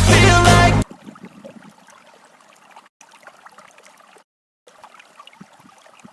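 Loud background music with a beat cuts off abruptly within the first second. After that comes faint trickling of irrigation water running through the field channels, with small clicks.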